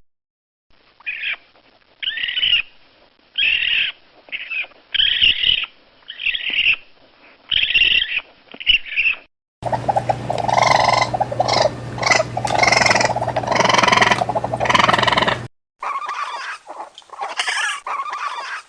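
Raccoon calls from three spliced recordings: first a string of short, high-pitched calls about a second apart, then from about ten seconds in a denser, louder run of calls over a steady low hum, and after a brief gap a third clip of calls.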